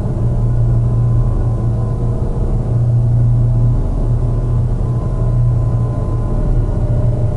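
Experimental ambient drone: a steady low hum with faint held tones higher up, changing little.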